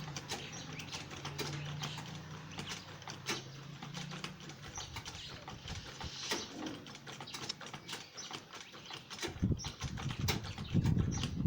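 Sewing machine stitching slipper material along a marked line: a fast run of needle clicks over a low hum, turning into a louder, heavier clatter of thumps from about nine seconds in.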